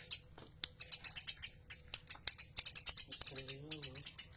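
Tame Eurasian tree sparrow chirping in a quick run of short, high chirps, several a second, after a brief pause at the start.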